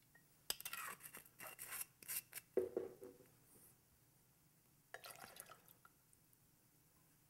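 A measure of Chartreuse being poured with a bar jigger: faint drips and light clinks of glassware for about three seconds, then another short spell of clinks about five seconds in.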